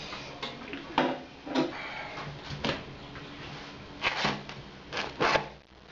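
Hands turning and handling a freshly baked bread-machine loaf on a cutting board: a series of short knocks and scrapes, the loudest in the second half.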